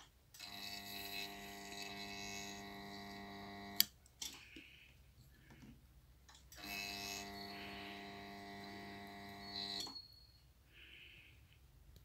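Resistance soldering unit buzzing with a steady mains hum while its probe heats solder paste on a brass tank side. It is switched on twice for about three seconds each time, with a sharp click as the first burst cuts off.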